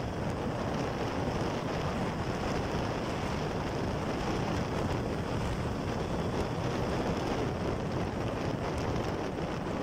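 Steady wind noise buffeting the microphone on a moving Yamaha TZM 150 motorcycle, mixed with road and riding noise.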